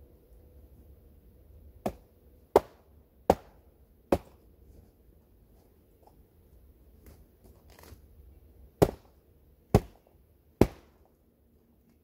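Hatchet chopping wood with seven sharp blows: four in quick succession, then a pause of several seconds and three more at a slightly slower pace.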